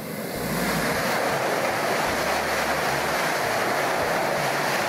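A Chinese CRH380B-family high-speed electric train passing straight through a station at speed. Its air rush and rail noise swell in over the first half second, then hold loud and steady as the train sweeps past.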